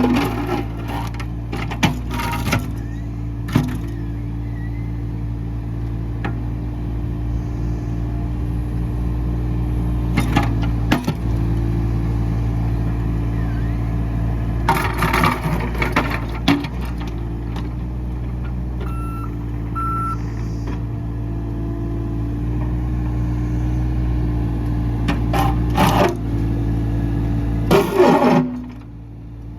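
Volvo mini excavator's diesel engine running steadily under load. Sharp knocks and scrapes break in at intervals, from the digging bucket working against rock and stones.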